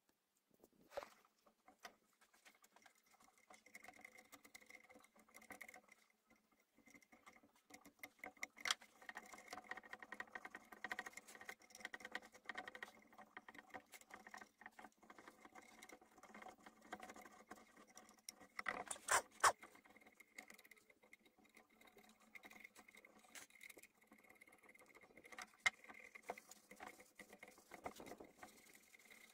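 Small hand blade scraping flaking old paint and gilding off a carved wooden column: a dense run of faint scratches and ticks, with a few sharper clicks about a third of the way in and again twice in quick succession about two-thirds of the way in. A faint steady hum sits underneath.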